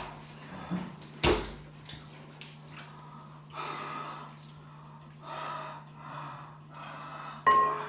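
A young man gasping for breath in a run of short, strained breaths, struggling for air. There is a sharp thump about a second in, and a sudden louder sound with a held tone starts near the end, over a steady low hum.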